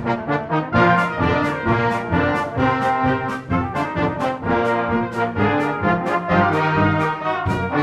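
Brass band playing a lively arranged medley of Southern American popular songs, full ensemble with a brisk, steady beat of crisply attacked notes.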